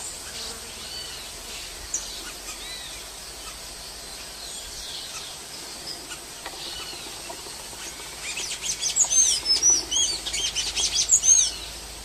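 Golden-chevroned tanager singing: scattered high, arching notes, then from about eight seconds in a fast, louder run of high chirping notes lasting about three seconds.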